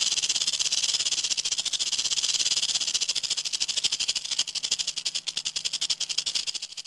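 Rattlesnake shaking its tail rattle in a fast, dry, continuous buzz, the warning display of a disturbed snake. The buzz grows weaker and more uneven over the last couple of seconds.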